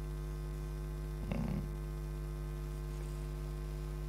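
Steady electrical mains hum with its overtones, carried through the sound system, with one short, soft sound about a second and a half in.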